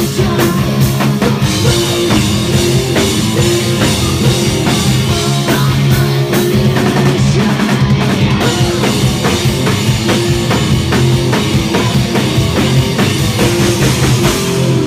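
Live rock band playing loud: distorted electric guitars, bass guitar and a drum kit with a steady beat.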